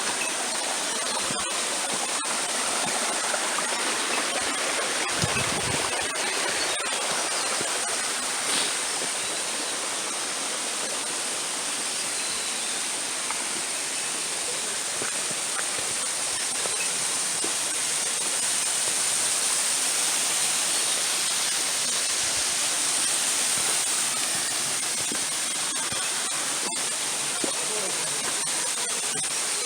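A waterfall running steadily, its falling water making an even, continuous rushing hiss.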